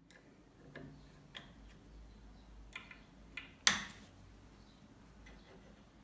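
Scattered light metallic clicks and taps from a thin-shafted hand tool working in a metal adjustable comb mechanism for a gun stock, clamped in a vise, with one sharp, much louder knock a little past halfway.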